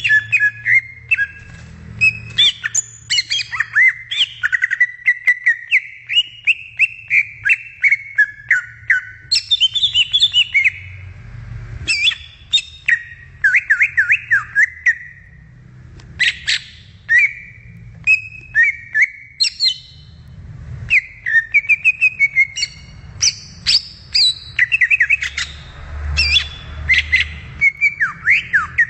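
Green leafbird (cucak ijo) singing a long, varied song of quick whistles, chips and sliding notes, with short pauses between phrases.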